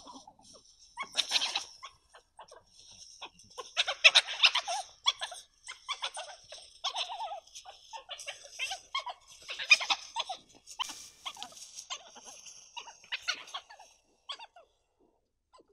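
European badgers (Meles meles) calling to each other in a string of short, noisy bursts, the loudest about four and ten seconds in.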